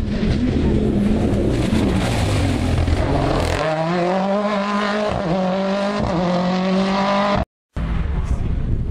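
Rally car engine accelerating hard, its pitch climbing and falling back twice with quick upshifts, after a stretch of wind buffeting the microphone. The sound cuts out briefly near the end, then wind noise returns.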